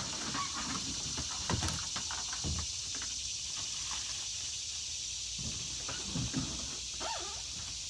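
Kayak hull knocked, bumped and scraped as it is tipped onto its side and handled, giving a few dull thumps at uneven intervals, over a steady high hiss.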